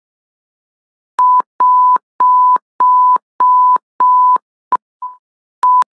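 Electronic alert tone at one steady high pitch, beeping on and off about nine times: six longer beeps, then shorter ones near the end. Each beep starts and stops with a click.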